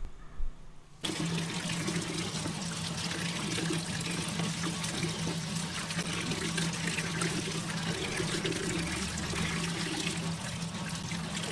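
Water running steadily in a kitchen, starting abruptly about a second in, over a steady low machine hum.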